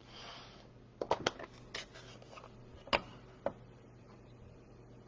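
A soft rustle, then a handful of light clicks and taps as stamping supplies (stamp, block and ink pad) are handled and set down on a craft mat. The loudest tap comes about three seconds in.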